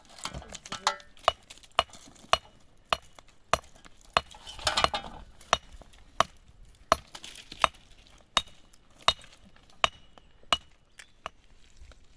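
A hand tool striking again and again in sharp single blows, about sixteen in all at a steady working pace of roughly three every two seconds, some with a faint ring. A short rustling scrape comes about halfway through.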